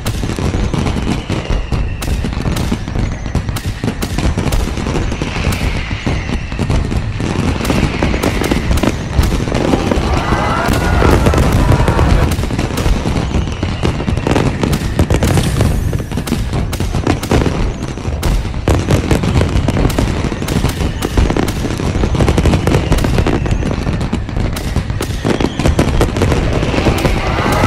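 Daylight fireworks barrage: a dense, unbroken volley of bangs and crackling reports, many per second like rapid gunfire, getting a little louder about ten seconds in.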